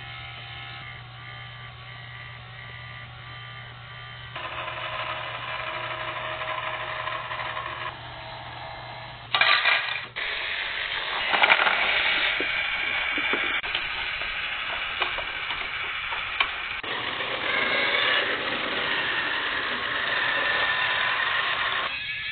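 Small battery-powered motors of Rokenbok toy monorail trains and vehicles whirring, with gear noise. The sound changes abruptly several times.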